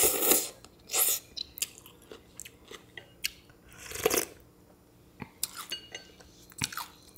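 Slurping of soft instant ramen noodles sucked up off chopsticks at the start and again about a second in, then a slurp of soup broth from a spoon about four seconds in, with chewing and small clicks between.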